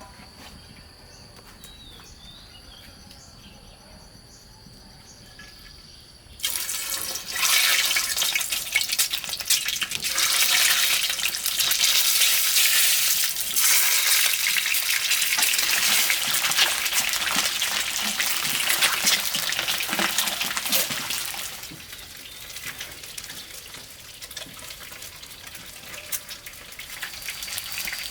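Water running and splashing, starting suddenly about six seconds in, loud for about fifteen seconds, then continuing more quietly.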